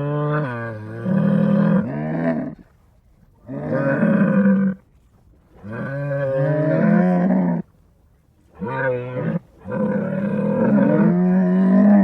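Camel vocalisation sound effect played in reverse: a series of about five drawn-out, pitched calls with short gaps between them.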